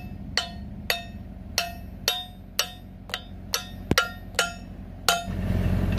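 A hammer striking a steel pin in the mounting bracket of an excavator auger's drive head: about ten sharp metal-on-metal blows at roughly two a second, each with a short ring, stopping about five seconds in.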